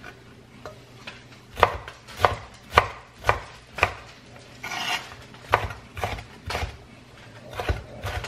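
Chef's knife dicing green bell pepper on a bamboo cutting board: runs of sharp knocks, about two a second, with short pauses between runs and a brief rustle about five seconds in.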